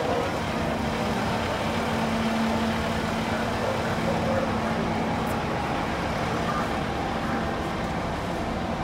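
Fire engine's diesel engine running steadily at the curb, a low even hum over city street and traffic noise.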